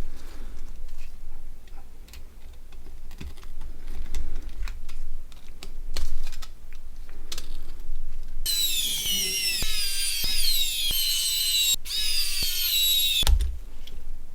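Small plastic phone parts clicking and tapping as they are handled and pressed into a Nokia 6680 body shell. From about eight seconds in, a loud, high-pitched warbling sound that keeps sliding down in pitch runs for about five seconds and cuts off suddenly.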